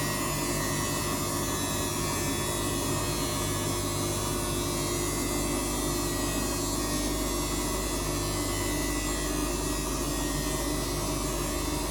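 Samsung washing machine running its spin, a steady motor and drum hum with several held tones.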